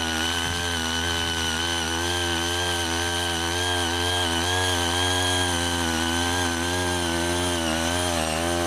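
CHING YEE CY80 mini power tiller's small engine running steadily under load as it drives the tines and ridging furrower through tilled soil. Its pitch wavers a little with the load.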